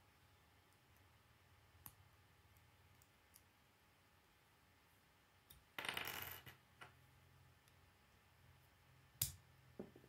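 Plastic K'nex pieces being handled and fitted together, otherwise near silence: a few faint clicks, a brief louder rustle of plastic parts about six seconds in, and one sharp click near the end.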